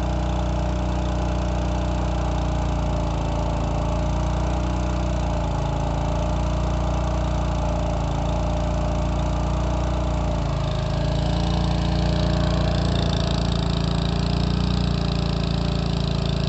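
Husqvarna 2 HP spray engine driving an HTP spray pump, running steadily under load while water is sprayed through the hose. A hiss grows louder about twelve seconds in.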